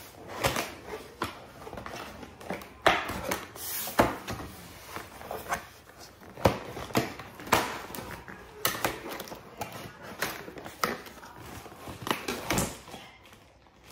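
Cardboard box being handled and pried open by hand: irregular taps, knocks and scrapes of the cardboard flaps.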